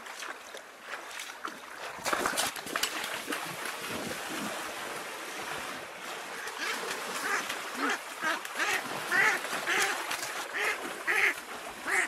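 Ducks quacking in a run of short calls, about one or two a second, starting a little past halfway, over water splashing that begins about two seconds in.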